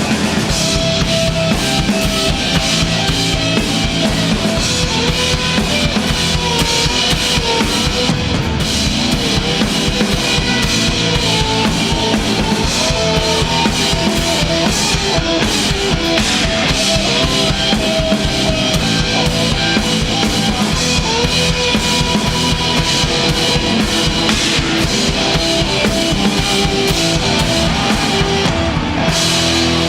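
Live rock band playing an instrumental passage: rapid, driving drum-kit beats with bass drum and snare under distorted guitars and bass, no singing.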